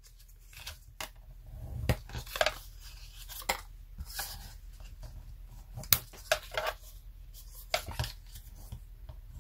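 A small piece of paper being scored and creased along fold lines: irregular scrapes and taps of paper and tool, with a few louder strokes.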